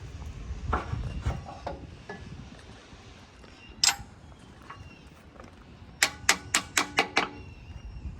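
Metal tools and parts being handled: a few dull knocks early on, one sharp metallic click, then a quick run of about seven sharp ringing metallic taps near the end.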